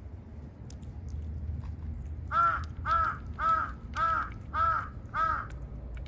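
A crow cawing six times in a steady series, the calls a little over half a second apart, over a low background rumble.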